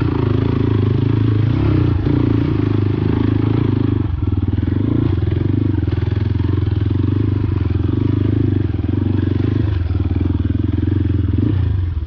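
Motorcycle engine running close to the microphone, pulling steadily with a dense firing pulse. Its note dips briefly about four seconds in, again near nine seconds and just before the end, as the throttle is eased.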